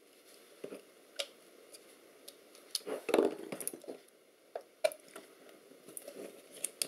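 Small flat-blade screwdriver prying and scraping at a metal plate glued on with sealant, giving scattered sharp metal clicks and short scrapes, with a louder burst of scraping about three seconds in.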